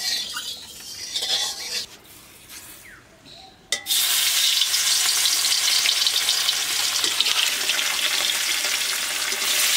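Bata fish pieces, rubbed with salt and turmeric, frying in hot oil in a metal kadai. There are short bursts of sizzling at first, then about four seconds in a loud, steady sizzle sets in and keeps going.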